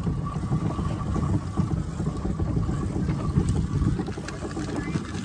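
Wind buffeting the microphone out on open water, a low, uneven rumble.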